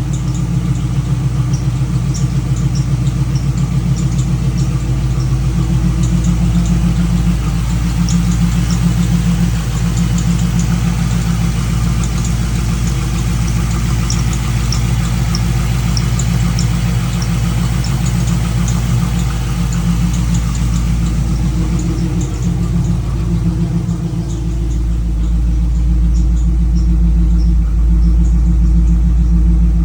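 LS-swapped V8 engine idling with a steady, pulsing rumble. Short high-pitched squeaks repeat over it throughout, a squeak whose cause is unknown. The rumble grows louder in the last few seconds.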